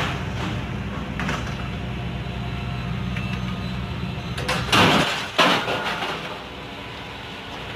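A vehicle engine running steadily, then two loud, rushing noises a little past the middle, after which the engine hum is gone.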